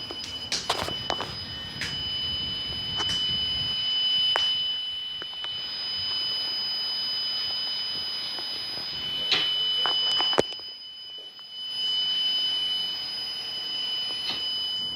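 Steady high-pitched electronic alert tone, two pitches sounding together, from a broadcast receiver during an Emergency Alert System monthly test. It cuts out for a second or two about ten seconds in, then resumes, with a few sharp clicks scattered through.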